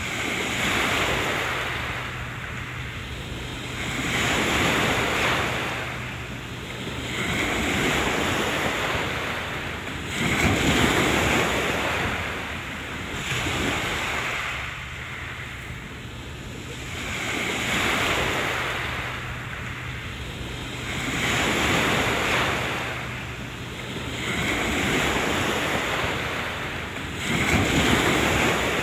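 Small waves washing in against the shore, rising and falling in a steady rhythm about every three to four seconds, with wind buffeting the microphone.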